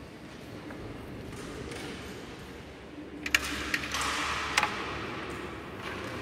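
Carrom shot: the striker clacks against the carrom men with a sharp, loud click about halfway through, followed quickly by two more clicks as the pieces knock together and against the board's frame.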